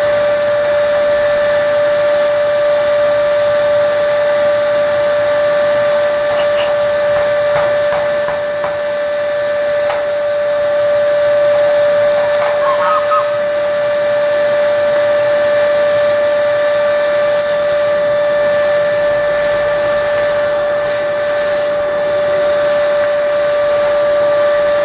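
Electric blower forcing air into a forge fire: a steady whine over a rushing hiss of air. A few faint small clicks come in the middle.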